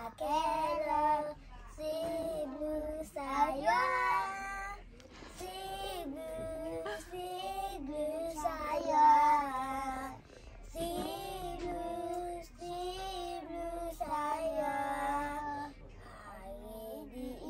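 A young girl singing a song unaccompanied, in phrases of held notes with short pauses between them.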